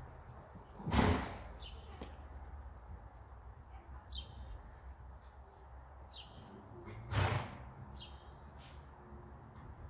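Small birds chirping, short high chirps every second or two, over a low steady rumble. Two loud, brief noisy bursts stand out, about a second in and again about seven seconds in.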